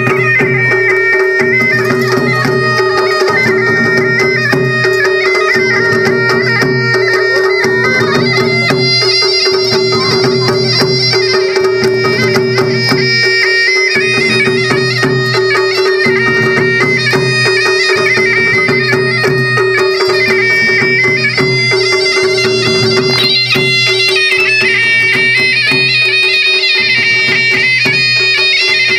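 Kumaoni folk music: a piped melody over a steady drone, with drums beating about once a second.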